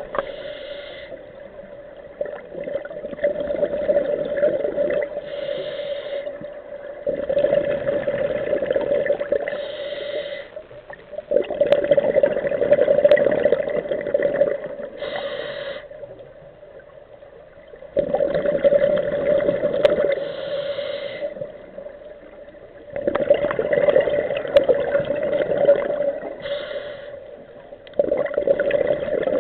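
Scuba regulator breathing underwater: a short hiss on each inhale, then a rush of exhaled bubbles lasting a few seconds, repeating about every five seconds.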